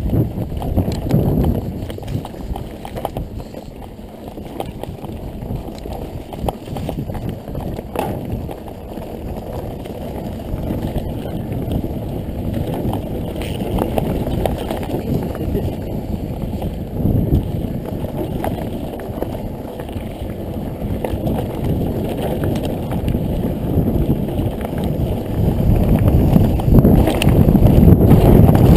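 Mountain bike riding over a rough trail: a rumble of wind on the microphone with many rattling knocks from the bike over the ground, getting louder over the last few seconds.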